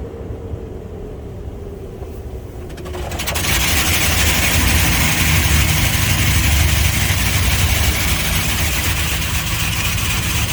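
Automatic car wash jets starting suddenly about three seconds in and spraying water over the car with a loud, steady rushing hiss, heard from inside the car over the low rumble of its idling engine.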